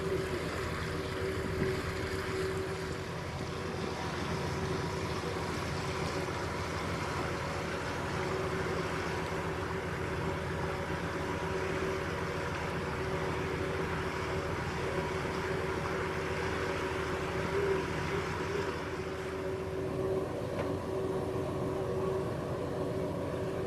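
Glass-bottom tour boat's engine running steadily under way, heard on board as an even hum with a constant pitch.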